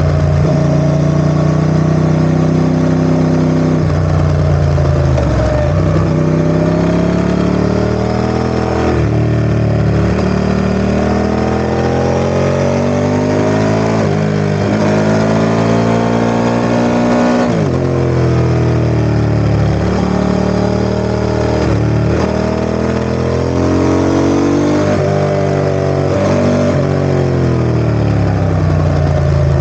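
Ducati ST4S V-twin engine running, its revs climbing and falling over several seconds at a time, with a sudden drop about halfway through.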